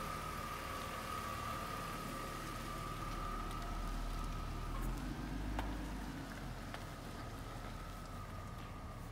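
BMW 525i wagon's 2.5-litre straight-six running at low speed as the car rolls away, its low rumble swelling a little midway. A steady high-pitched whine runs throughout.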